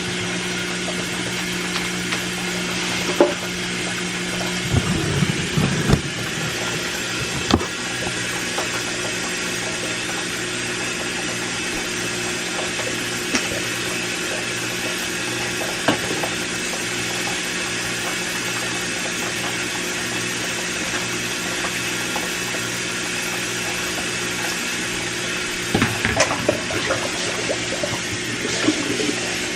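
A steady mechanical hum, with short knocks and clatter here and there and a busier run of clatter near the end.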